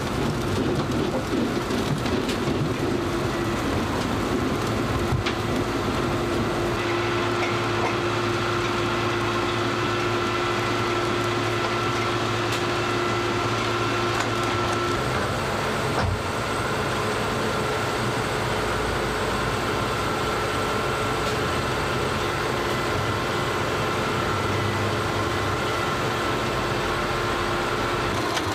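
NATURA 200 trailed sugar beet cleaner-loader running: a continuous rumble and clatter of beet tumbling through the cleaner and up the loading conveyor, over a steady machinery hum.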